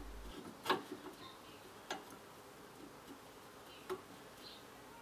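A few light metallic clicks and knocks, the first and loudest just under a second in, as the tool rest of a GMC ML100 wood lathe is moved on its banjo and clamped into position.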